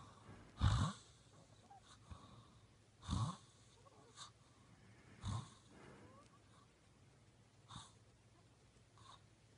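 A sleeping man snoring: short, quiet snores about every two and a half seconds, the first the loudest.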